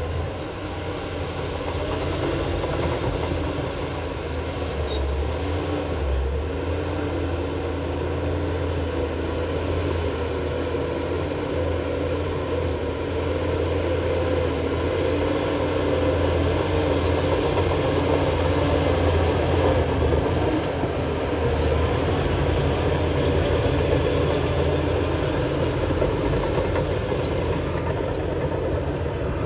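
Heavy diesel earthmoving machinery running steadily, with a deep engine drone and mechanical clatter.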